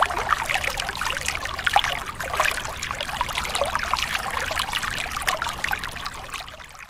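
Water pouring and splattering from the outlets of two miniature belt-driven water pumps, a steady trickling splash that fades away near the end.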